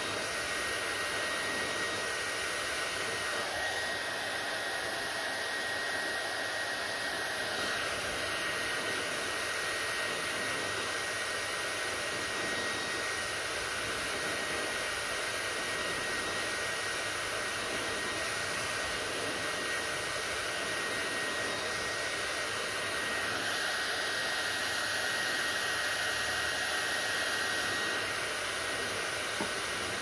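Handheld electric hair dryer blowing steadily on long hair, an even rush of air with a thin steady whine in it, swelling slightly for a few seconds near the end.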